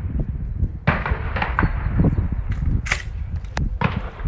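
Shotgun shots at a clay range: several sharp reports, the loudest about a second in and again about three seconds in, with fainter shots between them, over a steady low rumble.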